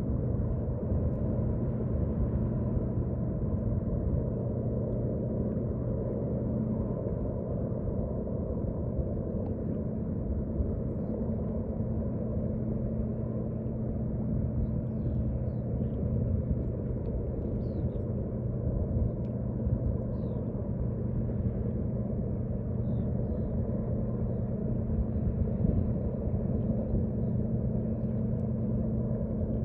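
Steady low engine rumble with a constant hum underneath, typical of a large diesel engine running.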